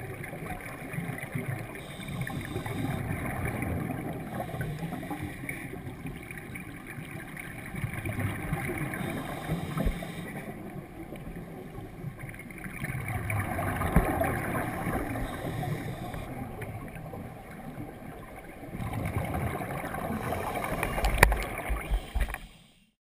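Scuba diver's regulator breathing heard underwater through a sealed GoPro housing: muffled bubbling swells of exhaled air every five or six seconds, fading out near the end.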